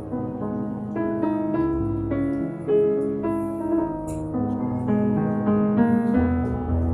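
Background piano music, a gentle melody of steady notes.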